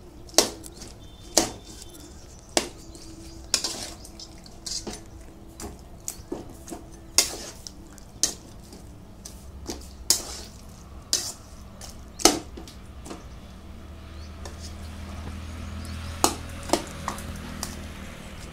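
Metal spatula scraping and clinking against a metal kadai as a thick jackfruit, potato and fish-head curry is stirred, with sharp knocks at irregular intervals, about one a second, and a lull of a few seconds near the end.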